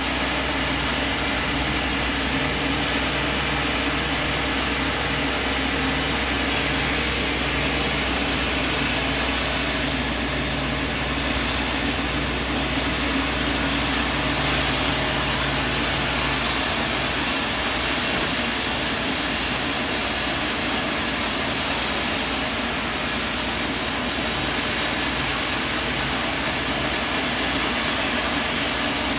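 Band sawmill running steadily under a constant wide mechanical noise. A low machine hum drops away a little past halfway.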